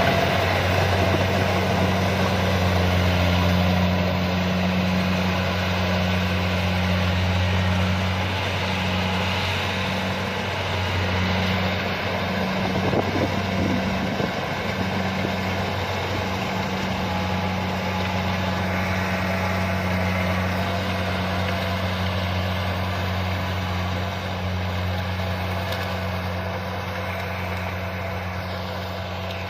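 Kubota DC-70 combine harvester's diesel engine and machinery running steadily with a low hum, growing slightly quieter near the end.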